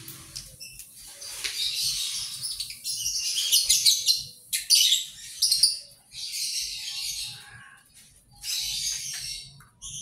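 Dry mixed bird seed rustling and hissing in bouts of a second or two as hands stir and scoop it in a plastic basin, with lovebirds chirping.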